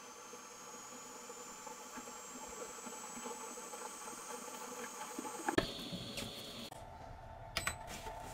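Faint high-pitched electronic whine from a Lectron Pro ACDC-10A hobby charger charging a single LiPo cell at 0.3 A. The whine slowly rises in pitch, then drops abruptly to a lower tone twice in the second half. A couple of short clicks come near the end.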